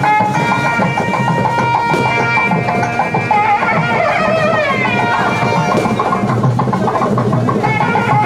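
Music with drums under a held melody line whose notes bend and glide about halfway through.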